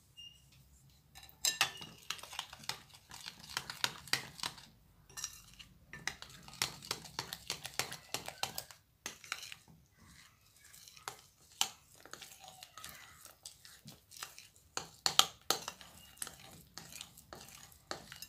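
Metal spoon stirring flour into a wet dough mixture in a white bowl, clinking and scraping against the bowl many times in quick, irregular strokes, starting about a second in.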